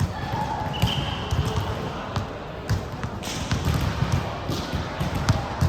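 Basketball game in a gym: a ball bouncing and thudding on the court, with scattered sharp knocks and a short high squeak about a second in.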